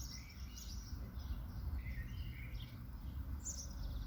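Songbirds chirping and singing in short, scattered phrases of high notes, over a steady low background rumble.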